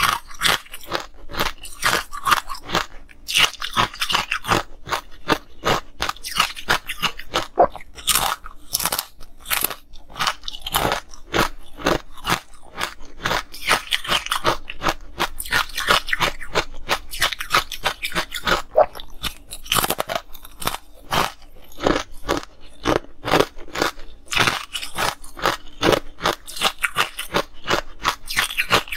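A person biting and chewing green, powdery ice: a fast, continuous run of sharp crunches and crackles.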